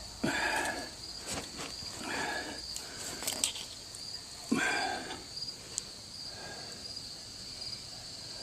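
Crickets trilling steadily, with several short knocks and scrapes over it, the loudest about four and a half seconds in.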